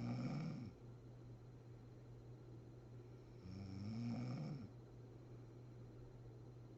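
A woman snoring in her sleep: one snore ends just after the start and another comes about halfway through, each rising in pitch. The snores come about four seconds apart over a steady low hum.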